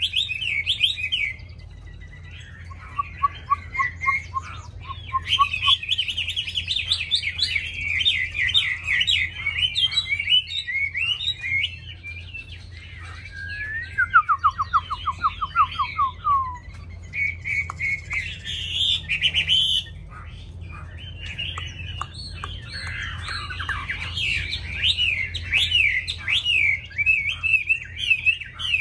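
Chinese hwamei (Garrulax canorus) singing loud, varied phrases of rapid whistled notes. Short pauses fall between the phrases, and twice the song breaks into a run of evenly repeated lower notes. A faint steady low hum lies underneath.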